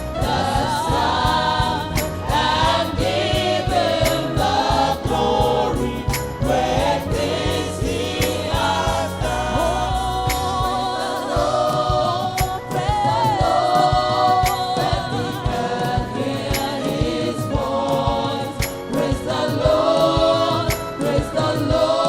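A gospel choir singing a praise song over a band with a steady beat; the low bass drops out about halfway through.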